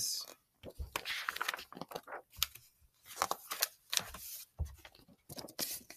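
Pages of a picture book being turned and the book being handled: scattered paper rustles and soft clicks.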